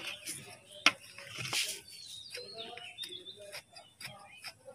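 A small hand tool scraping and digging into the hardened potting soil of a terracotta pot, with sharp clicks and scrapes, the loudest about a second in. A bird chirps briefly in the middle.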